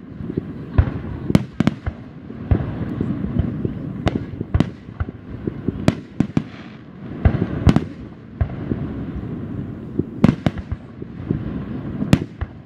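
Aerial firework shells bursting: about a dozen sharp bangs at uneven intervals over a steady low rumble.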